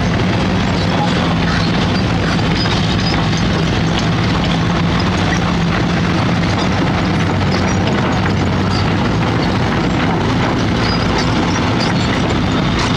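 Heavy diesel construction machinery, an excavator or drilling rig, running steadily close by: a constant low engine hum under dense mechanical noise, with faint scattered clicks.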